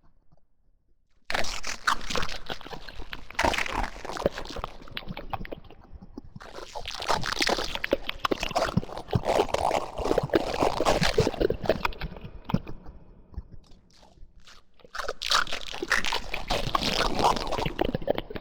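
Monster-devouring sound effect: wet crunching, chewing and squishing like flesh and bone being bitten through. It starts about a second in, eases off about two-thirds through, and picks up again near the end.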